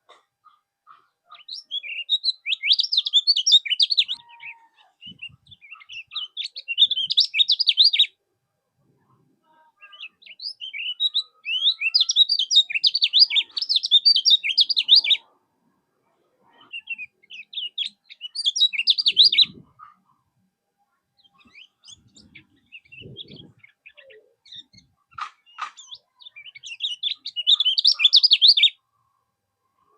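Lemon-bellied white-eye (kecial kuning) singing: about five bursts of rapid, high twittering chirps, each lasting two to four seconds, separated by short pauses.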